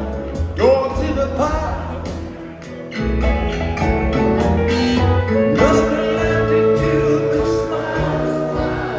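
Live rock band playing a song, with singing.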